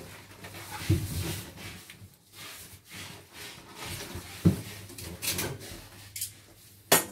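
Parcel being unpacked: plastic wrapping and cardboard rustle in short bursts, with three sharp knocks, about a second in, midway, and near the end.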